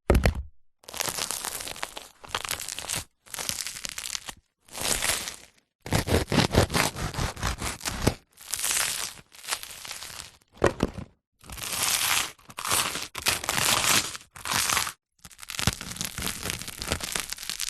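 Crusty bread crackling and crunching in a dozen or so separate takes, each half a second to a second and a half long, with dead silence between them.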